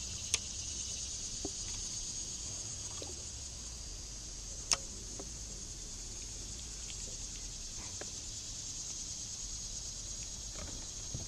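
Steady, high-pitched chorus of insects in the summer shoreline trees, with a low rumble beneath and two sharp clicks, one right at the start and one about halfway through.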